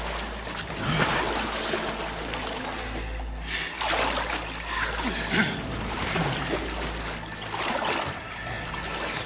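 Water splashing in repeated swishes as a person wades through deep water, over a low, sustained film-score drone.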